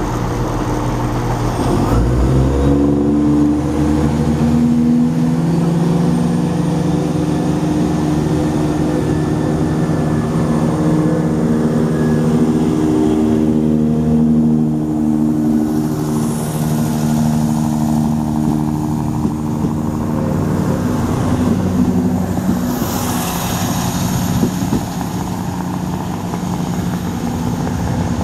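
Diesel multiple unit pulling away from a station platform: its underfloor diesel engines rise in pitch about two seconds in, then run under power with a steady engine note. Near the end a second diesel unit, a Class 170, approaches.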